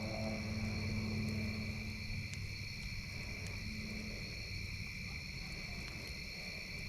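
Steady high-pitched chorus of night insects, with a few sharp pops from a crackling campfire. A low drone sits underneath, stronger in the first two seconds.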